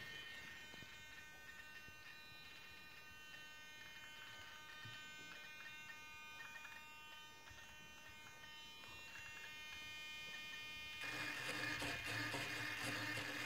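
Small RC glider servos, KST X08 type, giving a faint steady electric buzz with a high whine. About eleven seconds in the buzz grows louder and fuller.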